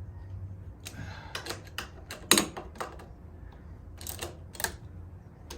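Irregular metal clicks and taps of hand tools working the handlebar riser clamp bolts, about a dozen in all, with one sharper knock a little over two seconds in.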